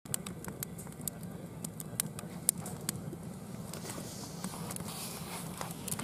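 Wood campfire crackling, with many irregular sharp pops and snaps over a low steady burning noise; one pop about two and a half seconds in is the loudest.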